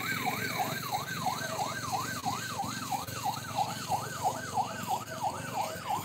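An emergency vehicle siren in fast yelp mode, its pitch sweeping up and down about three times a second without a break.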